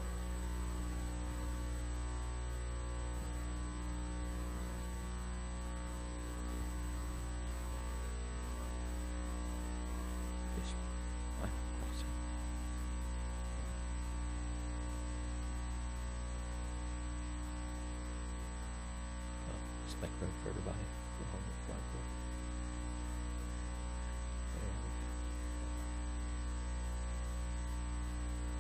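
Steady electrical mains hum with a stack of even overtones, at a low, unchanging level. A few faint brief sounds break in around the middle and about twenty seconds in.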